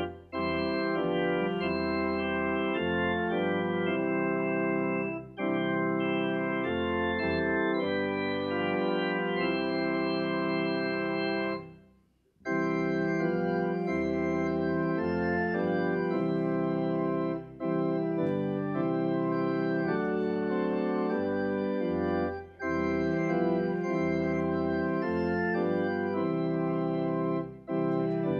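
Organ playing a hymn in held chords, phrase by phrase with short breaks between phrases. About twelve seconds in it stops for about a second between verses, then starts the next verse.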